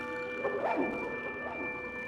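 Ambient background music: several sustained droning tones, with sliding pitches that swoop down and back up about half a second in and again near the end.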